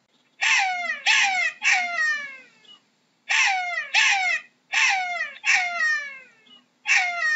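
Jackal calling: a series of about eight yelping calls, each sliding down in pitch and lasting about half a second, in quick runs of two or three with short pauses between.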